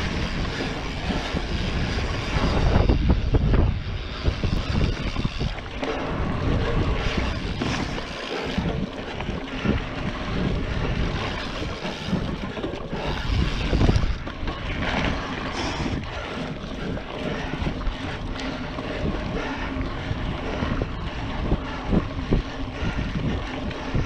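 Mountain bike riding over a dirt trail: wind rumbling on the microphone over tyre noise, with frequent short rattles and clicks from the bike.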